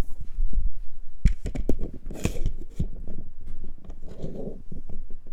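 Handling noise on a phone's microphone as the phone is fixed to a tripod and aimed: irregular knocks and bumps, with a sharp knock about a second in and a brief rustle around two seconds in.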